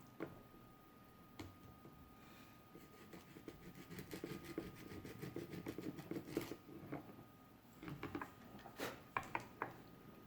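Sandpaper rubbing back and forth on the metal contacts of a Teddy Ruxpin's tape player to clean them, with sharp clicks and taps of handling scattered through it. The scratchy rubbing is thickest in the middle.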